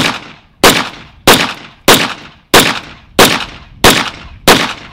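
A semi-automatic pistol fired eight times at a steady pace, about one and a half shots a second, each report followed by a short echo.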